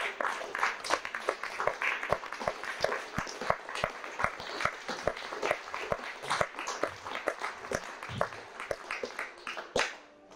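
Audience applauding: a dense, irregular patter of hand claps that falls away just before the end.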